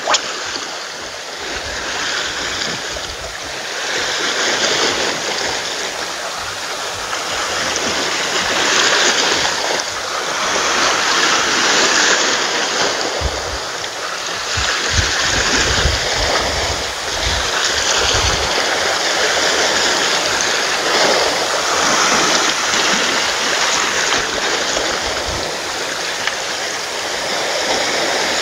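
Small sea waves washing in and breaking over a rocky shore, the surf swelling and easing every few seconds.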